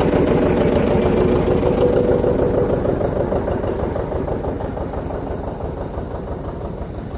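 John Deere 720 two-cylinder diesel tractor engine running with a dense, even pulsing beat, growing gradually fainter. A steady higher whine sits over it for the first few seconds and then fades.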